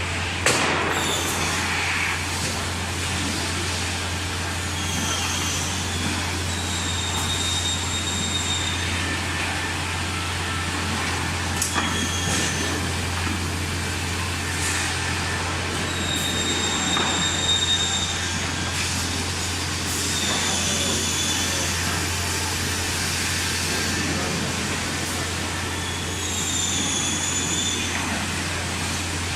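Xiaofeng MSZ600A six-sided CNC boring machine working in a factory: a steady low hum under a noisy background, with short high-pitched whines that come and go every few seconds, and a few sharp clicks.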